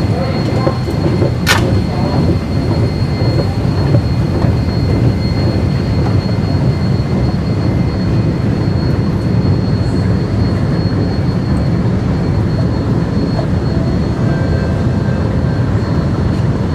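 Long station escalator running with a steady low rumble, with a faint high whine through the first half and one sharp click about a second and a half in.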